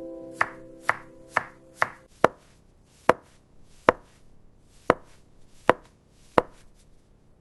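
Knife chopping on a cutting board: single sharp chops, about two a second at first, then slowing to about one a second.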